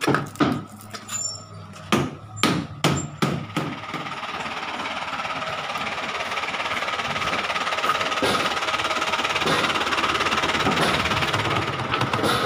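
A run of sharp knocks, like hammer blows on timber, over the first four seconds, then a lorry's diesel engine running steadily.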